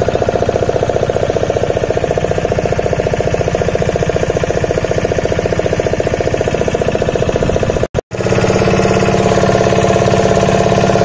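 Motorboat engine running steadily with a fast, even pulse. It cuts out for a split second about eight seconds in and comes back slightly different in tone.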